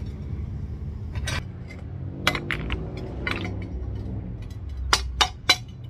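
Metal tongs clinking against metal casting moulds and cast bars: single sharp clinks, then three in quick succession near the end, over a low steady rumble.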